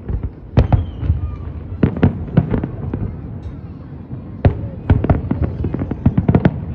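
Aerial fireworks going off in a display: a run of sharp bangs and crackling reports, some single and some in quick rapid clusters, over a steady low rumble.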